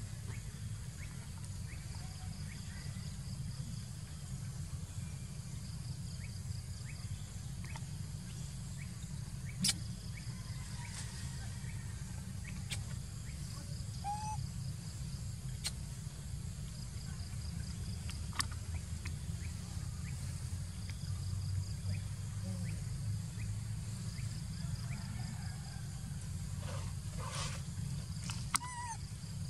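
Outdoor ambience: a steady low rumble under a faint, high, pulsing trill of insects. A few sharp clicks and a few short chirps break in now and then.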